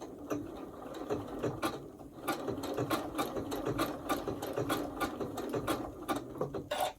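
Janome sewing machine stitching a blanket stitch around an appliqué, the needle mechanism ticking rapidly with each stitch. It stops just before the end.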